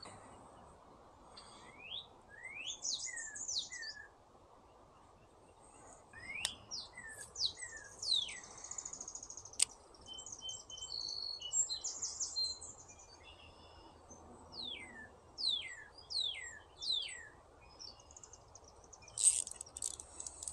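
Songbirds calling: repeated short, high chirps and downward-sweeping whistles, over a steady low background hiss. A single sharp click sounds about halfway through.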